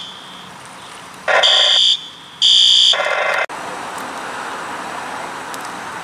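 Fire alarm sounding in loud, high-pitched beeps, two of them about half a second long and a second apart after a short pause. It then gives way abruptly to steady traffic noise.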